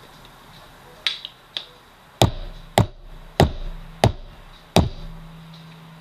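Plastic squeeze bottle of ketchup sputtering twice, then five sharp knocks about two-thirds of a second apart as the bottle is smacked to get the ketchup out.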